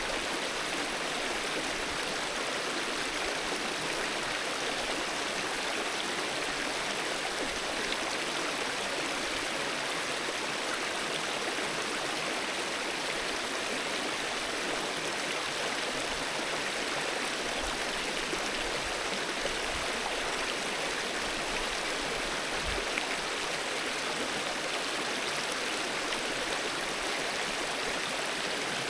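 Mountain river running over rocks: a steady rushing and gurgling of flowing water, even throughout, with a couple of faint low bumps.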